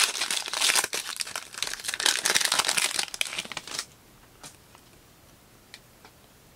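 Foil football-card pack wrapper being torn open and crinkled by hand, a dense crackle that stops about four seconds in. A couple of faint ticks follow as the cards are handled.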